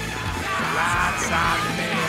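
Loud background music with yelling voices over it.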